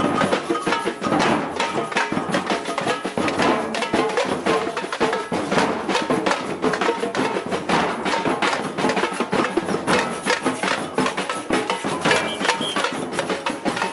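Batucada samba percussion group playing a dense, driving rhythm of many drums and high, sharp hand percussion.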